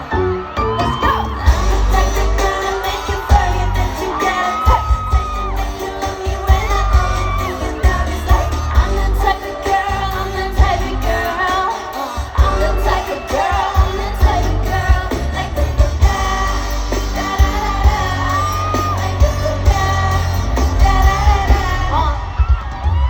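Loud K-pop song with a singing voice over heavy bass and a steady beat, played through a concert sound system during a sound check.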